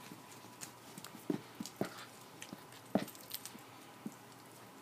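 Maltipoo puppy play-biting and scuffling at a hand: scattered small clicks and a few short, louder knocks, the loudest just over a second in and at about three seconds in.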